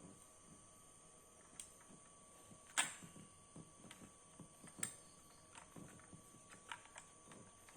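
Scattered light clicks and knocks from computer parts and tools being handled during assembly, with two sharper knocks about three and five seconds in, over a faint steady hum.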